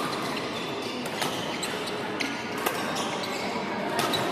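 Badminton rackets striking shuttlecocks on several courts: sharp pops at irregular intervals over a steady background din, echoing in a large sports hall.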